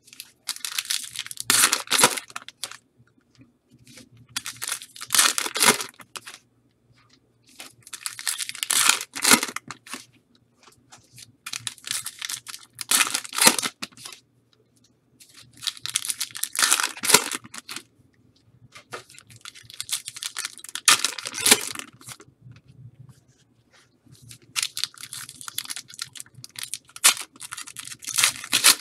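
Trading-card packaging being torn open, with ripping and crinkling in a burst about every four seconds, seven in all.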